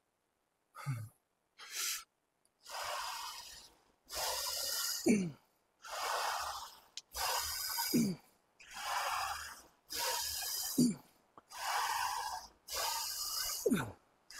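A man breathing hard through squat reps on a Smith machine: quick forceful breaths, with a short grunt that falls in pitch on the exhale about every three seconds, four times.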